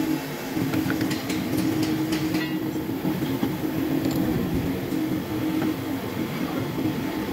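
Steady mechanical drone with a low hum, overlaid with scattered light clicks and clatter in the first couple of seconds: running machinery in the workshop.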